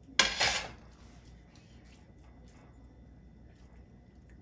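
Mixed vegetables being added to a pot of layered cabbage rolls: one brief rustling clatter about a quarter second in, followed by a few faint small clicks.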